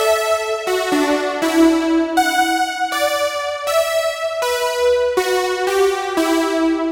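A Spectrasonics Omnisphere software-synth patch with a bright, electric-piano-like keyboard sound plays held notes and chords. A new note comes in roughly every three-quarters of a second, with no drums.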